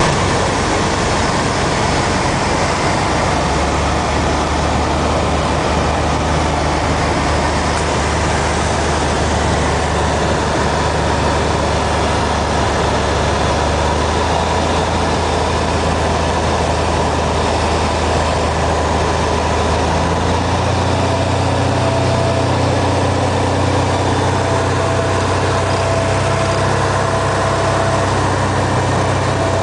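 Cessna 182P's six-cylinder Continental engine and propeller droning steadily in flight over a steady hiss, a humming and growling sound. About two-thirds of the way through, the engine's pitch steps up and stays higher.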